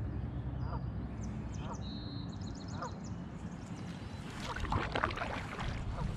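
Wind rumbling on the microphone as a canoe is paddled, with water splashing and dripping from a paddle stroke about four and a half seconds in. A bird calls three times about a second apart in the first half, over faint high birdsong.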